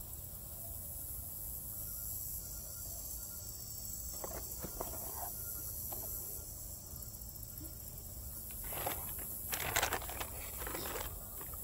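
Rustling and crinkling as a foam takeout container and then a paper takeout bag are handled, with short rustles about four seconds in and a louder, busier spell of paper crinkling around nine to eleven seconds in. A steady high hiss and a low rumble lie underneath.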